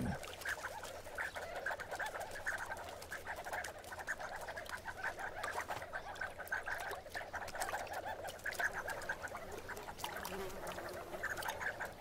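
A flock of sandgrouse calling: many short chattering calls overlapping.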